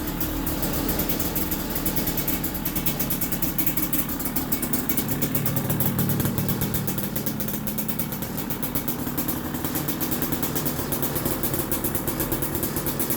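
2020 KTM 300 XC TPI two-stroke single idling through a Pro Circuit Type 296 spark-arrestor silencer, a steady rapid popping of exhaust pulses, while the engine warms up after a hard cold start. The note shifts up slightly about five seconds in.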